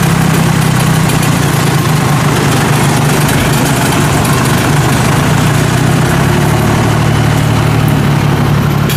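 Engine of a homemade crawler-tracked rice harvester running steadily as the machine drives and turns on its tracks.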